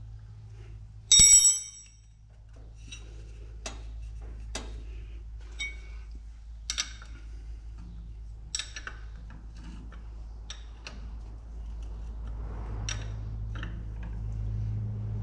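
A spanner and metal parts clinking on the Massey Ferguson 35X engine while the oil filter canister bolt is done up: a loud ringing metallic clang about a second in, then scattered light clicks and taps about a second apart.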